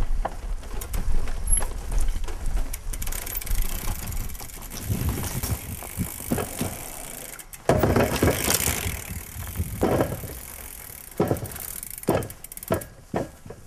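Mountain bike ridden over rough trail: steady tyre and riding noise with repeated sharp knocks and rattles. The sound jumps abruptly louder about eight seconds in.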